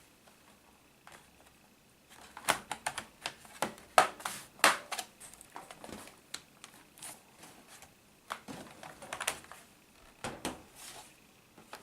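Quick, sharp clicks and taps on the plastic of an Acer E5-411 laptop, coming in two clusters: one starting about two seconds in, another about eight seconds in.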